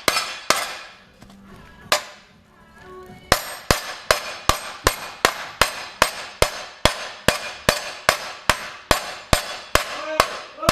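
Hammer blows knocking a part in on the car: a few strikes, a pause with a single blow, then a steady run of about two and a half blows a second.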